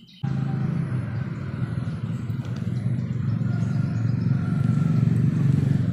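A motor vehicle engine running steadily with a low hum. It cuts in abruptly just after the start and grows slightly louder.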